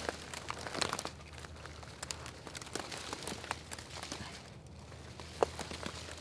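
Dry twigs and dead leaves crackling and rustling under a person lying and shifting about on a bed made of them, with many small snaps and one sharp crack about five and a half seconds in.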